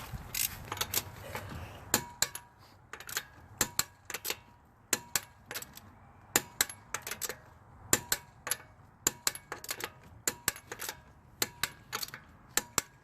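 Torque wrench ratcheting as the wheel's lug nuts are tightened: a long run of sharp metallic clicks, unevenly spaced, some in quick pairs.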